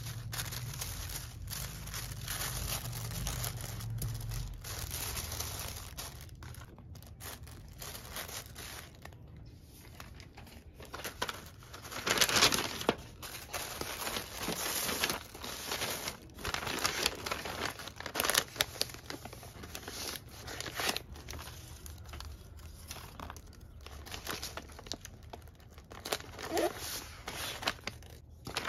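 Thin tissue paper rustling and crinkling as it is folded around a garment, then a kraft paper mailer bag crinkling and crackling as the wrapped bundle is slid in and smoothed flat. The rustles come in irregular handling bursts, loudest about halfway through.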